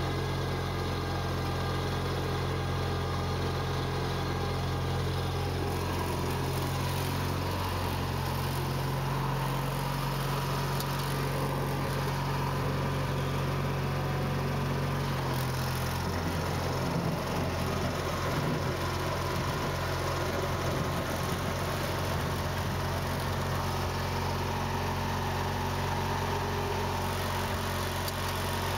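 Garden tractor engine running steadily; about halfway through, its note changes and runs a little rougher for a few seconds.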